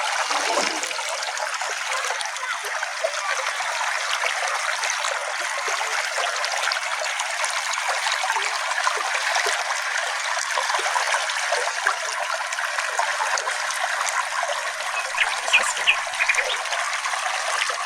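Small brook flowing over stones, a steady trickling and babbling of water, with a couple of brief sharper sounds near the end.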